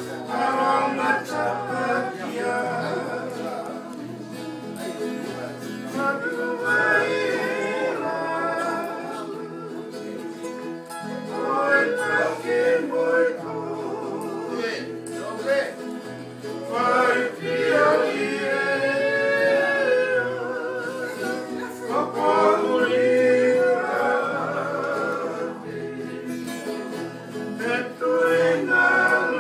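Group of men singing a Tongan hiva kakala song together in harmony, accompanied by strummed acoustic guitars. The singing comes in phrases that swell louder and ease off every few seconds.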